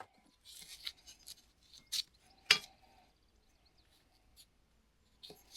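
Small hard objects being handled: scattered light clicks and rubbing, with two sharp knocks about two and two and a half seconds in.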